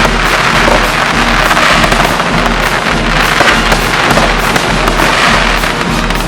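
Aerial fireworks crackling densely and continuously, a rapid overlapping stream of small pops, with music playing underneath.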